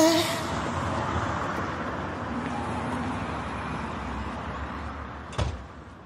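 Street traffic ambience: the steady noise of passing cars, fading out slowly, with one short sharp knock about five and a half seconds in.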